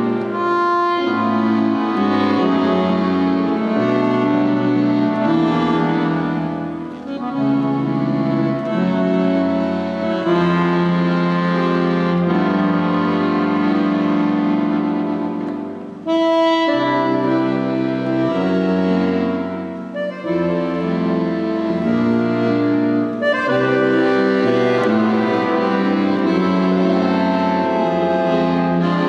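Solo piano accordion (a Giustozzi) playing a melody over sustained chords, with short breaks between phrases.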